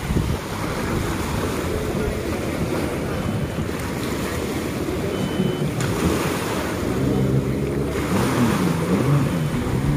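Small waves washing on the shore, with wind on the microphone. About seven seconds in, a jet ski's engine starts revving, its pitch swinging up and down as it pulls away.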